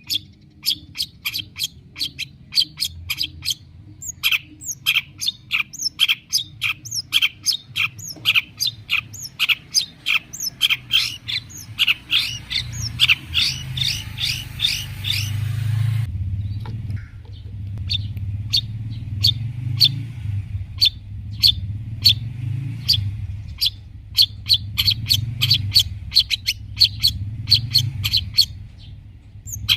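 Long-tailed shrike (cendet) singing hard: a fast, unbroken run of sharp, repeated chattering notes, about four or five a second, with mimicked calls of other birds worked in. A low hum runs underneath.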